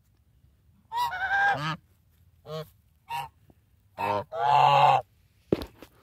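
African geese honking: a run of short and longer honks, the loudest and longest about two thirds of the way in. A brief sharp knock comes just before the end.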